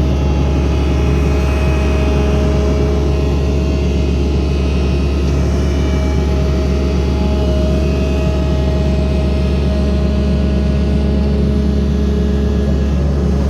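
Excavator engine running steadily at a constant speed, a loud, even low hum with no revving.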